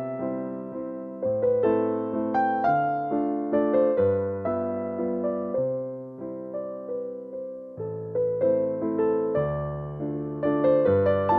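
Background music: a gentle electric piano melody over bass notes, each note struck and fading.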